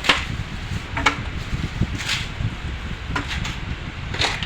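Sharp clicks and knocks of tools and parts being handled, about one a second, over a low steady hum.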